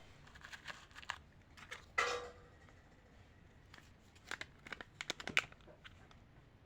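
Plastic candy wrappers being handled and torn open, crinkling in short irregular crackles, with one louder sharp snap about two seconds in.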